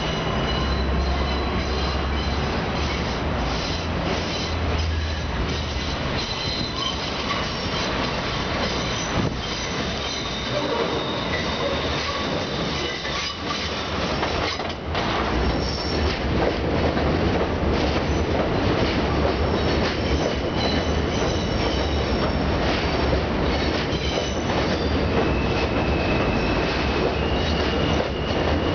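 R160A-1 subway train entering an elevated station round a curve. Its steel wheels squeal high over the steady rumble and clatter of the cars, and it grows louder from about halfway as the train comes alongside the platform.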